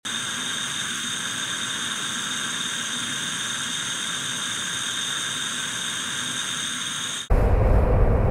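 Sound effects of a refinery vapour cloud explosion. A steady hiss of escaping gas runs while the cloud spreads. About seven seconds in comes a sudden loud blast that goes on as a deep rumble.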